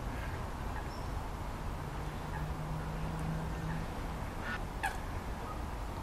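Lakeside ambience with a steady low rumble and a few brief bird calls, the loudest a sharp call a little under five seconds in. A low hum runs for about two seconds in the middle.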